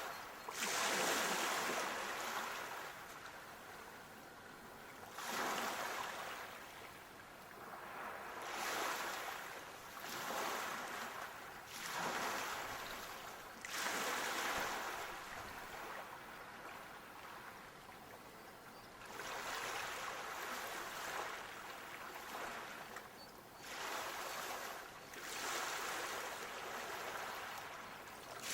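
Waves washing in on a shore: a rush of water swells up and falls away again every few seconds, the loudest about a second in.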